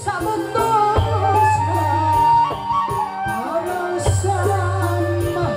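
Live koplo-style dangdut band playing a Sundanese song, with a woman singing a wavering melody over it and deep bass notes coming in twice.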